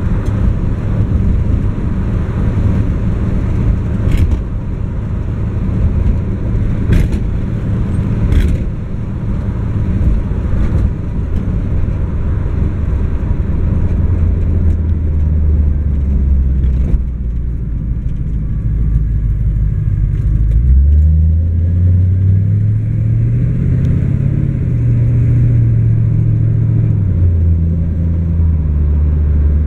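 1968 Chevrolet Camaro's engine running as the car drives, with steady road rumble. From about two-thirds of the way through, the engine note climbs and drops back a couple of times as the car pulls. A few sharp clicks come in the first nine seconds.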